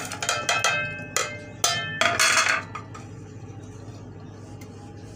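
A plate clinking and knocking against the rim of a metal cooking pot as spices are tipped off it into the lentils, several sharp taps with brief ringing in the first two and a half seconds, then only a low background hum.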